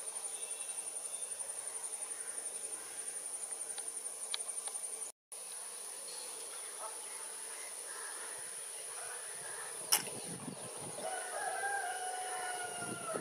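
Insects trilling with a steady high-pitched buzz that pulses several times a second, cut off briefly about five seconds in. Near the end a rooster crows once, a drawn-out call.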